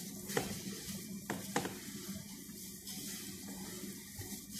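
Sliced onion being scraped off a cutting board into a stainless steel bowl: a soft rustling hiss with three light taps in the first two seconds.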